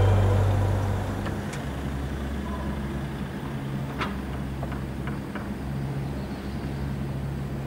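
Background music fading out in the first second or so, leaving outdoor ambience: a steady low motor-vehicle hum with a few faint clicks.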